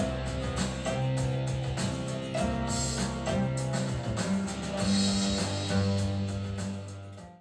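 Guitar-led music with low sustained bass notes and drums, played back through a Bose portable Bluetooth speaker. It fades out at the very end.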